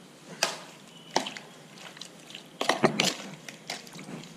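Cubes of raw kahawai (Australian salmon) dressed with lemon juice and salt being stirred by hand in a plastic bowl: a run of irregular wet squishes and clicks, busiest about three seconds in.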